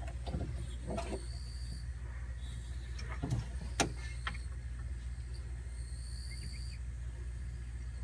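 Honda Acty kei truck's small three-cylinder engine idling with a steady low hum, while a few sharp clicks and knocks come from the refrigerant charging hose and can being handled, the loudest just under four seconds in.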